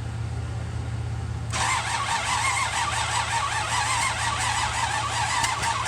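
A warbling siren-like tone that rises and falls rapidly starts about a second and a half in, over a steady low engine drone.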